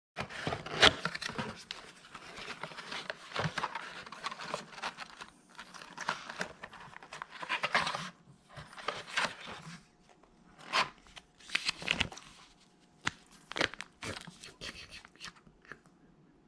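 Packaging crinkling and rustling as a hand rummages through a cardboard box of crumpled brown paper and lifts out a plastic pouch. The rustling is dense for about the first half, then comes in separate short crinkles.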